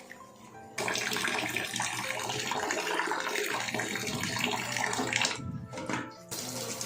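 Kitchen tap turned on about a second in, water running into a pot of rice being rinsed, with a short break near the end before it runs again. Faint background music under it at the start.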